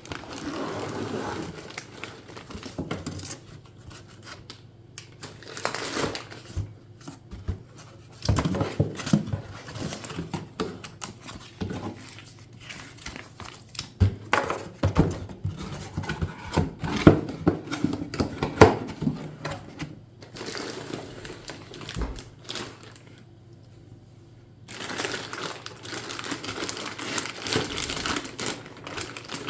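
Packaging being handled and opened: irregular crinkling and tearing, with sharp taps and knocks. There is a short lull about three-quarters of the way in, then rustling resumes.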